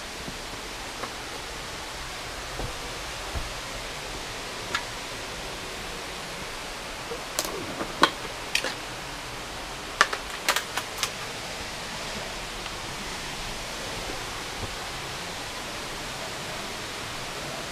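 Steady rush of creek water, with a handful of sharp clicks and knocks clustered around the middle.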